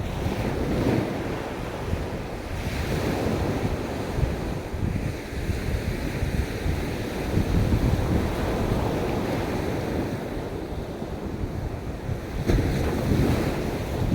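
Sea waves washing onto a beach in a steady hiss that swells and eases, with a stronger surge near the end, and wind buffeting the microphone.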